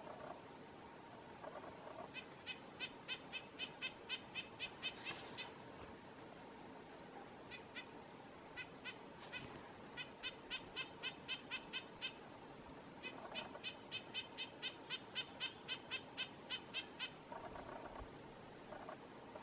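Male red-breasted nuthatch calling to the female: runs of repeated nasal notes at about four or five a second, in three bouts with short pauses between.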